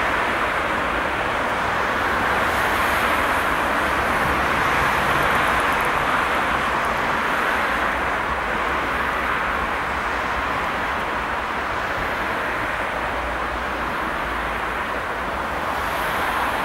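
Airbus A319's IAE V2500 turbofan engines running at low power as the jet rolls along the runway after landing: a steady jet hiss over a low rumble, easing a little past the middle and swelling again near the end.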